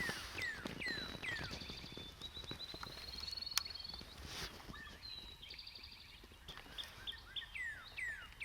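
Songbirds singing: repeated downward-slurred whistled notes and fast trills, with one longer trill in the middle. There is a single sharp click about three and a half seconds in.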